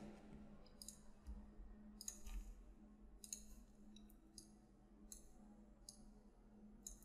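Faint scattered clicks of a computer mouse and keyboard, about a dozen in all, over a low steady hum.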